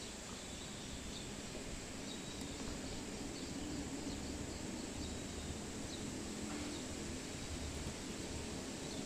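Faint steady outdoor background noise: a low hum and rumble with a few faint, short high chirps.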